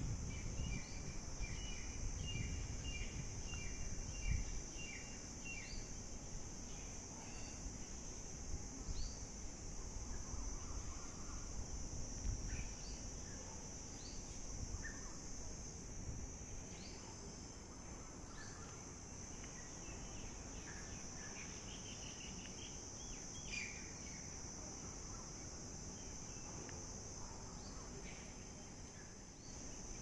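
Steady high-pitched insect drone, with scattered short bird chirps and a quick run of repeated bird notes in the first few seconds, over a low rumble.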